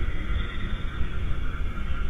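Steady hiss and low rumble from a CCTV camera's microphone, with no distinct event standing out.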